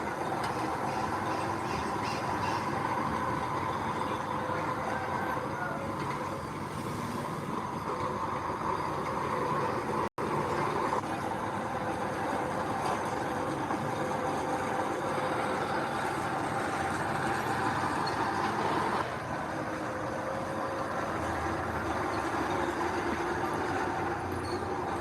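Heavy earthmoving machinery running steadily, a diesel engine hum with held tones under a broad mechanical noise. There is a very brief dropout about ten seconds in, and the sound steps down a little just before twenty seconds.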